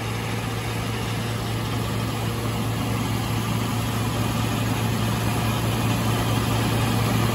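Wheatheart grain auger running with a steady hum while seed, likely linseed, pours from its spout into a seed truck's bin, adding an even rushing hiss.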